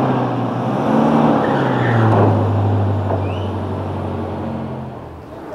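A pickup truck's engine running as it drives slowly past close by. The sound builds to its loudest about two seconds in, then fades away.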